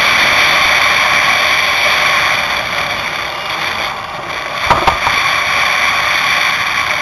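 Steady, loud noise of a running machine, with a couple of knocks about five seconds in.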